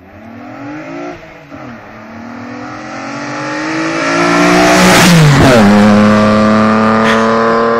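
Reliant Scimitar driving past: its engine note climbs and grows louder as it accelerates toward the microphone, then drops sharply in pitch as it goes by at its loudest about five seconds in. After that it keeps a steady, lower note as it drives away.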